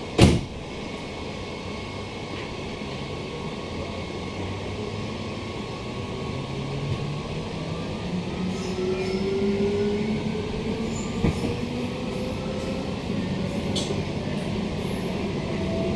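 Queensland Rail SMU 260 series electric multiple unit, heard from inside the carriage, pulling away and accelerating: over a low running rumble, the traction motors' whine rises steadily in pitch from about halfway through, and the sound grows louder. A single sharp knock sounds right at the start.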